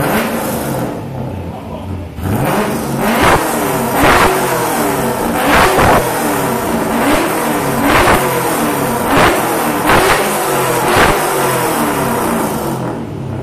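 Holden ute's LS1 5.7-litre V8 with a straight exhaust being revved: a quick blip at the start, then a string of about nine sharp throttle blips over ten seconds, each rising and dropping back, easing back toward idle near the end.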